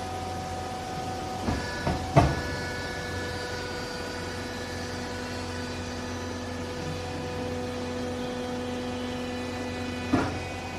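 Vertical cloth baler's motor running with a steady hum and whine. Sharp metal clanks come about one and a half to two seconds in and again near the end, as the machine's working note shifts.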